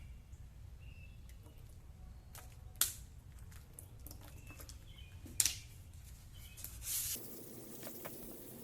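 A hand spray bottle spritzing water onto a headlight lens to wet it for sanding, three short squirts about two seconds apart.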